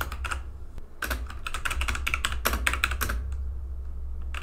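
Typing on a computer keyboard: quick runs of keystrokes with short pauses between them, over a low steady hum.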